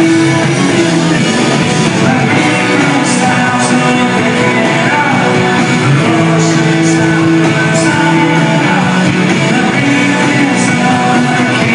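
Rock band playing live, with electric guitars, drums and a sung vocal, heard loud from the crowd at a concert.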